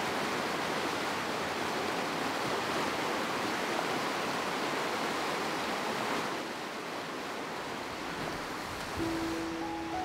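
River rapids rushing over rocks, a steady full rush of water that softens about six seconds in. Near the end a few held musical notes come in.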